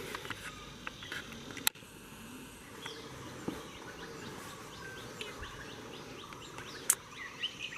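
Outdoor ambience with birds and insects: a quick run of short high chirps from about three seconds in, over a faint steady background hiss, with two sharp clicks.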